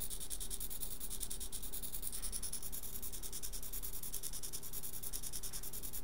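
Small blue hobby micro servo buzzing steadily with rapid, even ticking while it is powered and holding its horn still.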